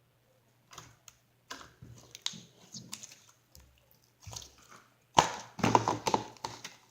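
Slime being squeezed and stretched by hand, making irregular sticky clicks and crackles that are loudest about five seconds in.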